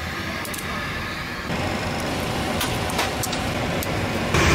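Steady rumbling background noise that gets louder in two steps, with a few light clicks of cockpit switches being flicked.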